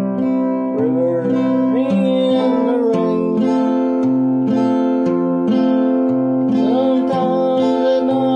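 Acoustic guitar strummed with a pick in a steady rhythm, chords ringing on. A man sings over it in a few long notes that slide in pitch, about a second in and again near the end.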